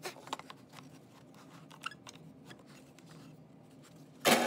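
Scattered light clicks and knocks from a Quick-Grip one-handed bar clamp being squeezed tight on boards on the drill press table. Near the end the drill press motor switches on and runs with a steady hum.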